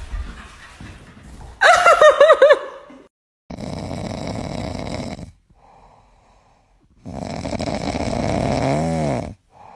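A puppy asleep on its back snoring, two long snores, the second ending in a brief wavering squeaky note. Earlier, a short high warbling cry.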